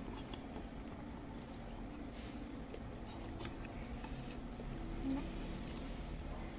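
Close-miked eating sounds of a person chewing spicy seblak, with a few short, noisy mouth and utensil sounds over a low steady hum.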